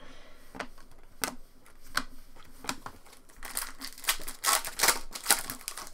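A freshly opened foil card pack and its chrome trading cards being handled: crinkling wrapper and cards slid and flicked through, a run of small clicks and rustles that grows busier from about three and a half seconds in.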